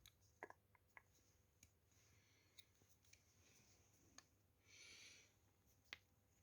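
Near silence: room tone with a few faint, short clicks and a brief soft hiss about five seconds in.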